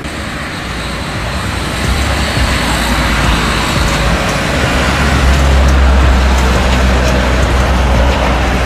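Jet engines of a twin-engine widebody airliner rolling down the runway: a steady rush and low rumble that grows louder from about two seconds in, with a faint high whine above it.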